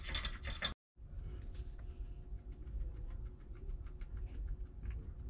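A small poodle biting and licking at the metal spout and bowl of a gravity-fed pet water dispenser, a quick run of clinks and clicks that stops abruptly just under a second in. Then faint, scattered ticks of its claws on the tiled floor, over a low steady hum.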